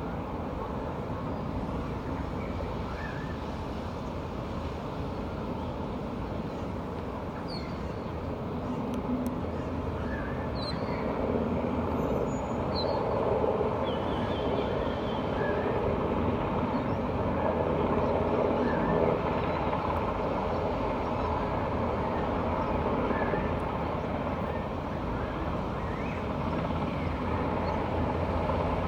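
MRH-90 military helicopter running overhead, a steady rotor and turbine noise that grows louder from about eight seconds in. A few short high chirps sound faintly above it.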